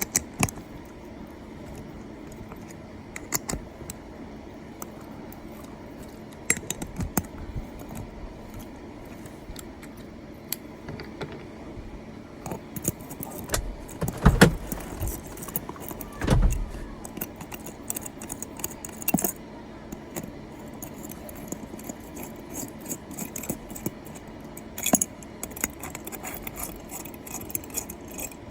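Irregular metallic clinks and clicks of a 1/2-inch wrench working on the bolts of a wheelchair wheel, with two heavier knocks about halfway through.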